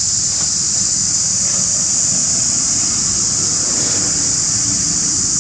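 Cicadas droning in a loud, steady, high-pitched chorus that does not let up.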